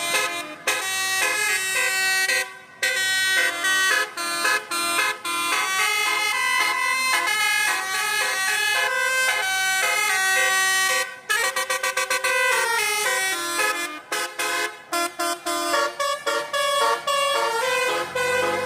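Basuri musical horn on a Tiara Mas tour bus playing a melody: loud horn notes stepping up and down, some held and some in quick staccato runs, with short breaks between phrases.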